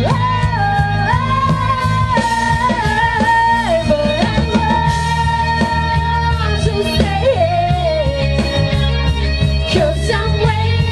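Live rock band playing: a female lead singer sings a melody of long held notes over electric guitar and drums.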